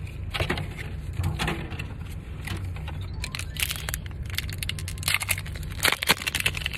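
Foil wrapper of a Pokémon trading card booster pack crinkling and crackling as it is handled and torn open by hand, in several bursts of crackle.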